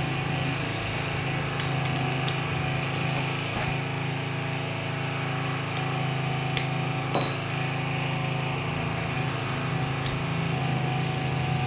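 A steady low mechanical hum with an even drone of overtones runs throughout, from a machine running in the background. A few light clicks and one sharper tap about seven seconds in come from tools and small parts being handled.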